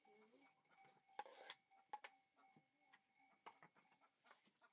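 Faint bleating of small livestock near the start, with scattered small clicks and knocks over a thin steady high tone.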